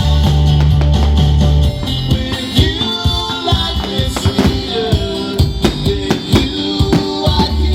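Music: a band with guitar and drums playing to a steady beat, with a heavy bass line that drops out about two seconds in.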